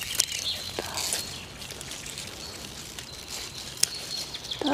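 Perpetual chard leaves rustling as they are gathered and picked by hand, with a few faint sharp snaps as stalks break.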